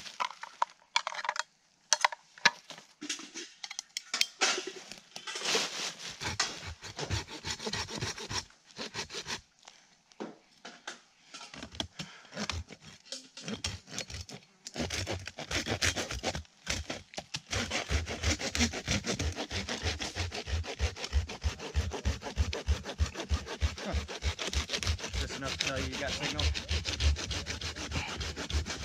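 Small hand saw cutting into a resin-rich pine stump for fat lighter (fatwood). Scattered snaps and knocks in the first half give way, about halfway in, to steady back-and-forth sawing strokes, about three a second.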